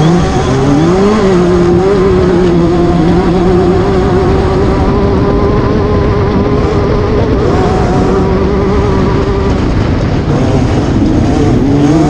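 Class 10 off-road race car engine held at steady high revs for several seconds, then backing off and revving back up near the end, over a constant loud rush of noise.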